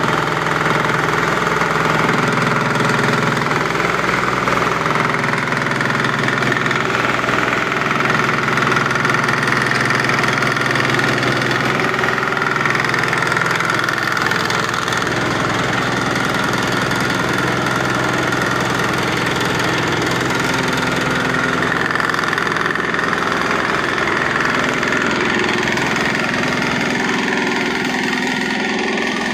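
Large organic-waste grinding machine running steadily, a loud continuous mechanical drone with a slight drop in level about halfway through.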